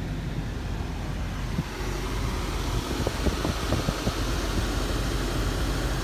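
Air rushing out of the 2019 Honda Odyssey's rear lower floor vent with the rear climate blower on maximum output. A steady rush with a low rumble, broken by irregular gusty thumps in the middle stretch.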